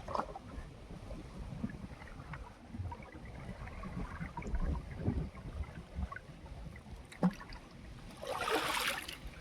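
Water sloshing around a small fishing boat moving on open water, with wind rumbling on the microphone. A single sharp knock comes about seven seconds in, and a louder splashing burst near the end.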